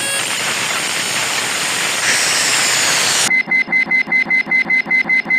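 Cartoon sound effects: a steady hiss for about three seconds, then a rapid alarm-like beeping, about eight beeps a second, starting suddenly.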